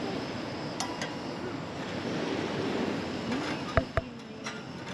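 Steady wash of ocean surf with wind on the microphone, broken by a few short sharp clicks or knocks, one pair about a second in and another near the end.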